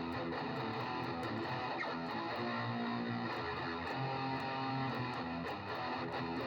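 Electric guitar played through distortion and boost, a continuous run of held notes and chords.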